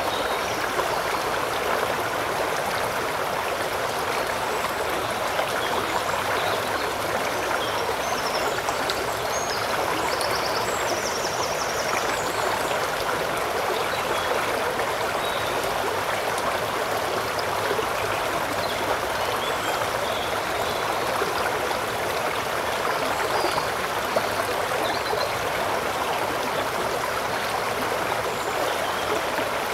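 River water flowing, a steady rushing that does not change.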